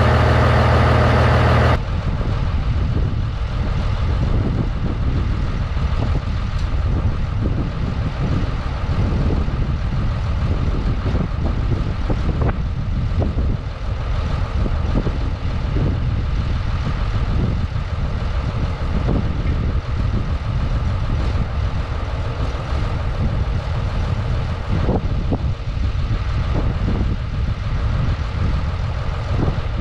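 Ruston-Bucyrus 22RB dragline's diesel engine idling steadily. It is loud inside the cab for the first two seconds or so, then quieter and rumbling as heard from outside the machine.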